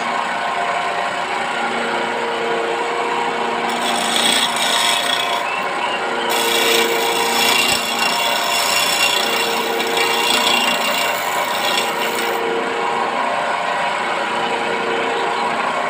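Electric wood lathe running steadily with a constant motor hum. From about 4 s to about 12 s, sandpaper is held against the spinning teak table leg and adds a hissing rubbing sound. The rubbing stops near the end while the lathe keeps turning.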